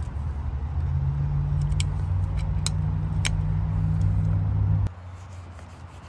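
A vehicle engine idling, a steady low hum that cuts off abruptly about five seconds in, with a few sharp clicks over it.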